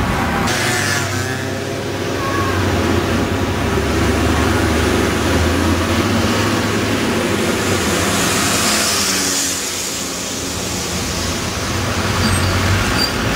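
Single-deck diesel buses pulling past one after another, their engines running with a steady low drone. A hiss swells about eight seconds in as a bus passes close.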